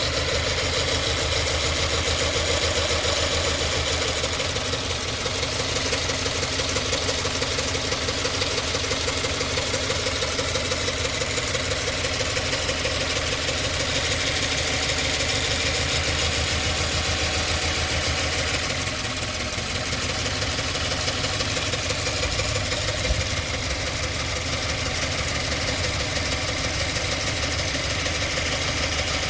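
2017 Subaru Forester XT's turbocharged 2.0-litre flat-four idling roughly, shaking and surging, with a misfire set as P0303 (cylinder 3) and P0300 (random misfire). The running sags slightly around twenty seconds in, with one short sharp tap a few seconds later.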